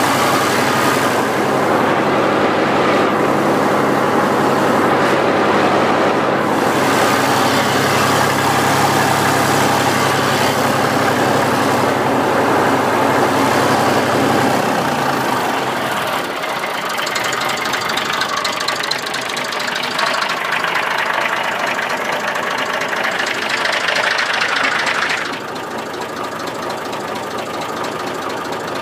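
Massey Ferguson 35X tractor's diesel engine running steadily. About halfway through its note drops to a lower, more pulsing idle.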